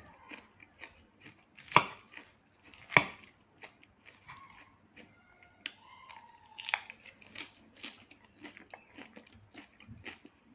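Close-miked chewing of crisp raw salad greens: a run of small wet mouth clicks and crackles, with two sharp loud crunches about two and three seconds in.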